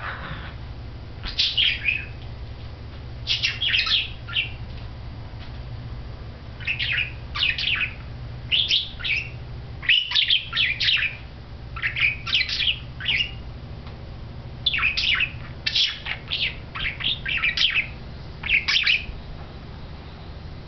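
Budgerigar chattering in short bursts of quick chirps and warbles, a cluster about every second with brief pauses between: a male budgie courting his own reflection. A low steady hum runs underneath.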